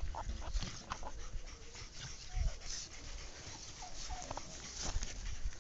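English Cocker Spaniel and black Labrador puppies playing, giving short whines among scattered scuffling knocks and clicks.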